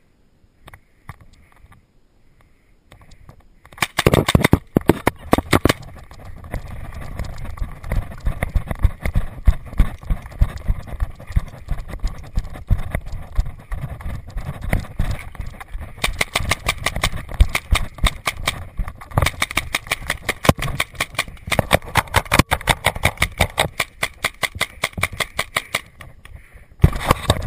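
Paintball marker firing in rapid strings of sharp shots from about four seconds in, with running footsteps between the volleys.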